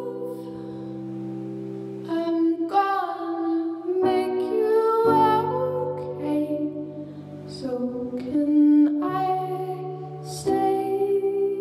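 A woman singing a slow melody over held chords on a keyboard, the chords changing every second or two.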